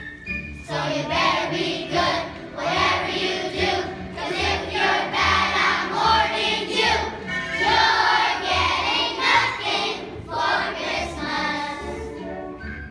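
A group of young children singing together as a choir over musical accompaniment with a steady low beat.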